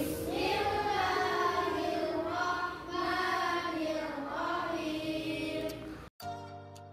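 A group of girls chanting Quran recitation in unison. About six seconds in it cuts off abruptly and a few ringing mallet-instrument notes begin, like a vibraphone.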